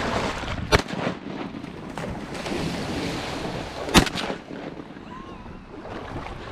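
Two shotgun shots about three seconds apart, the second the louder: the second is a training shot fired to keep the dog driving past the decoys on a long retrieve. Between them a dog swims and splashes through the water.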